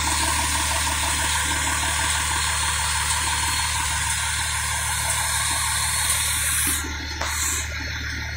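Fire engine's diesel engine idling with a steady low hum, under a continuous hiss that stops suddenly about seven seconds in.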